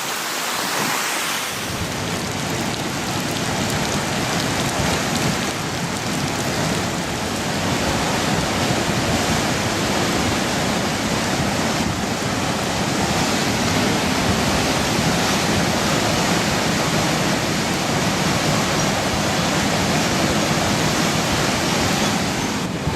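Fast-flowing floodwater rushing steadily, with the deep part of the rush coming in about a second and a half in.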